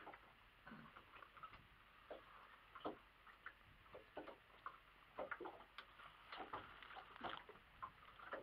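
Near silence broken by faint, irregular small ticks and taps.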